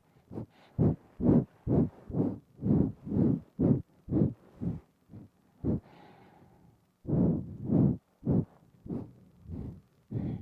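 Quick, sharp nose breaths puffed right against a binaural microphone, about two a second, with a gap of about a second past the middle.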